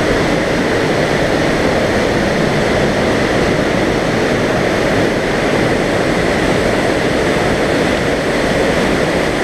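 Loud, steady rush of a waterfall pouring into a narrow rock gorge, with the creek running over stones.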